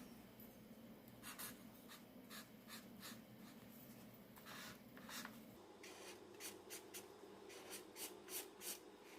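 Faint scratchy strokes of an Ohuhu marker's broad chisel tip colouring on paper. The strokes are short and irregular and come more often in the second half.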